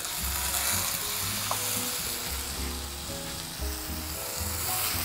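Ribeye steak searing in hot oil in a frying pan. The sizzle starts suddenly as the meat is laid in, then carries on as a steady hiss.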